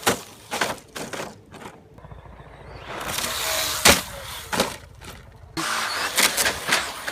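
Radio-controlled model truck driving over rough ground: a noisy hiss broken by a run of irregular knocks and clatters, the sharpest a little under four seconds in.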